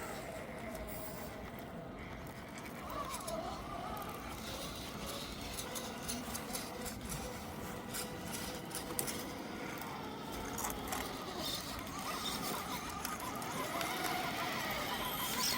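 Small electric motor and gearbox of an RC crawler whining, the pitch rising and falling as the throttle is worked. Scattered clicks and scrapes run through it.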